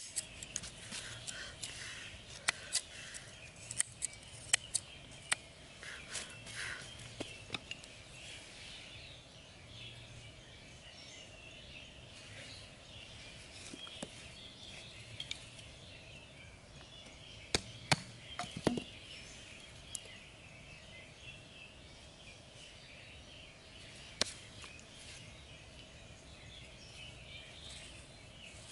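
Scattered sharp clicks and snips of small hand work with scissors and thin bamboo sticks, thickest in the first several seconds and again in a short cluster a little past the middle, over a steady outdoor background hiss.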